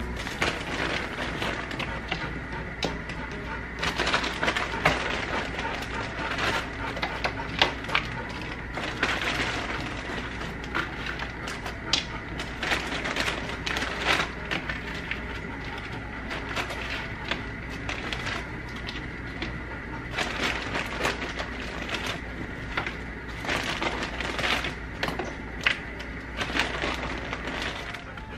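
Frozen broccoli florets shaken from a crinkly plastic bag onto metal sheet pans of cubed squash and sweet potato: an irregular run of crackles from the bag and clicks of the florets landing.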